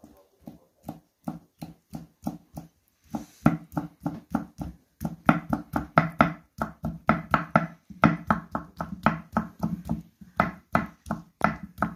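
A kitchen knife chopping thin sheets of boiled dough into fine strips on a wooden cutting board: a steady run of sharp knocks as the blade hits the board, about three to five a second.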